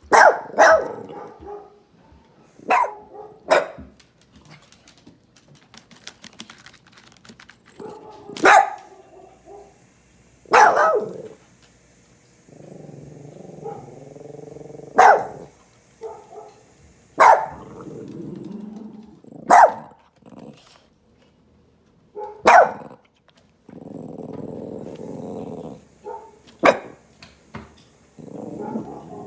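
A dog barking in single sharp barks, about ten spread through the stretch, with several low growls two to three seconds long between them. It is a recording of a dog barking, played back to a terrier.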